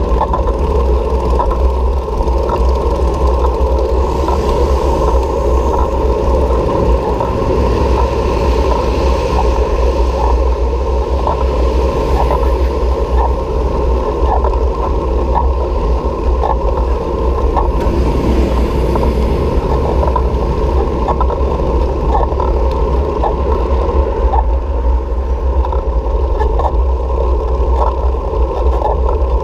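Wind and road noise from riding a bicycle: a heavy rumble of wind on the microphone under a steady rushing noise, with faint regular ticks throughout. Twice a higher hiss swells up and fades.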